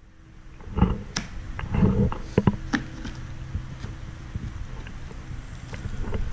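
Hard plastic carrying case being handled and opened: scraping and a few sharp plastic clicks in the first three seconds, then quieter rubbing, over a faint steady low hum.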